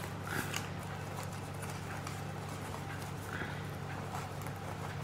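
Wired ribbon rustling as the loops of a bow are fluffed out by hand, in short bursts about half a second in and again around three and a half seconds, over a steady low hum.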